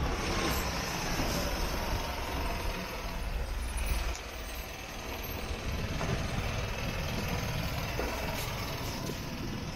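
Street traffic: the low engine rumble of a heavy vehicle close by, dropping away about four seconds in, leaving steady street noise.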